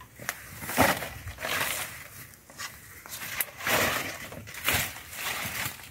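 Dry leaf-and-straw mulch rustling and crackling in irregular bursts as it is handled and laid back around the base of a young tree.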